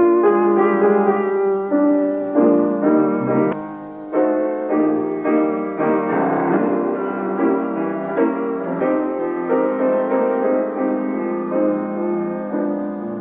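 Piano playing a slow melody over held chords, notes struck about once or twice a second.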